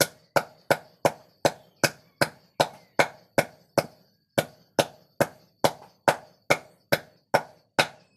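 Hammer pounding plant bark on a wooden bench: steady, sharp knocks about two and a half a second, with a short break about four seconds in. The bark is being crushed for use as fish poison.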